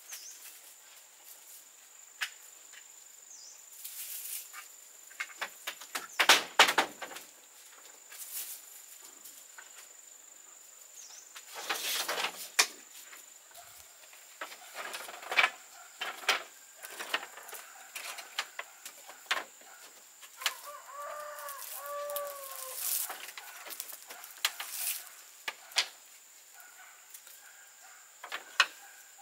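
Irregular knocks, clatters and rustling, the loudest around six seconds in, over a steady high-pitched whine. A few short pitched calls come about two-thirds of the way through.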